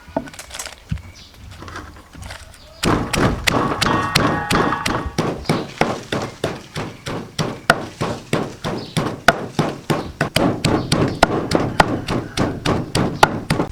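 Steady rhythmic thunks, about three a second, starting about three seconds in: chili being worked by hand with repeated strikes for a marinade.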